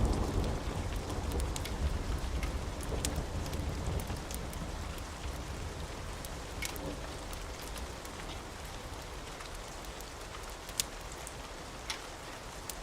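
Steady rain with scattered sharp pops of a crackling wood fire, two of the pops standing out near the end. A low rumble under the rain eases off over the first several seconds.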